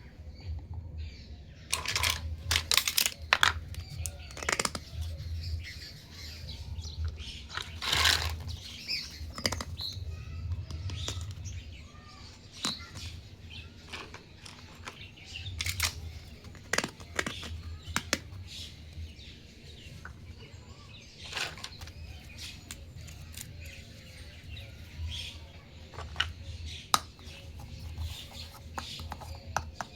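Small plastic toy kitchen pieces being handled, with irregular clicks, taps and rustles as parts are set down and fitted together, over a low steady hum.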